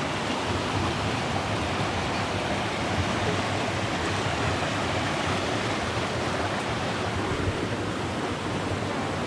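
Steady rushing of a small waterfall, about 15 feet high, pouring over rock.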